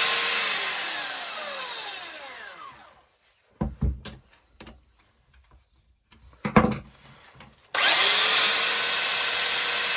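Makita 9911 belt sander winding down after being switched off, its whine falling in pitch over about three seconds. A few knocks follow, then it starts again about three quarters of the way in, spins up and runs steadily, its new drive belt driving the sanding belt properly.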